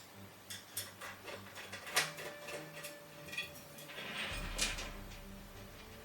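Parts of a table being handled during assembly: scattered light clicks and knocks, the sharpest about two seconds in and again a little past four and a half seconds. A low steady hum comes in just past four seconds.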